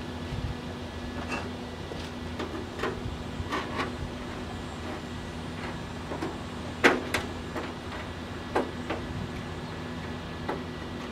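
Hand tin snips cutting rusty sheet steel, about nine irregular sharp snips with the loudest about seven seconds in, over a steady low hum.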